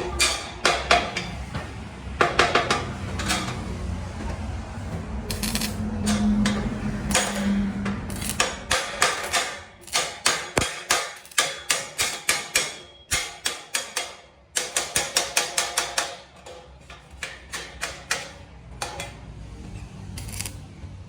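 Repeated hammer blows, coming in quick runs of about three to four strikes a second, with a low steady hum underneath during the first half.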